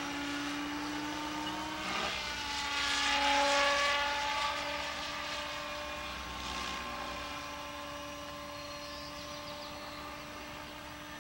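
Protos Max V2 radio-controlled model helicopter in flight: its rotor and drive whine steadily, bending in pitch in the first few seconds as it manoeuvres. It is loudest about three seconds in, then slowly fades as it flies off.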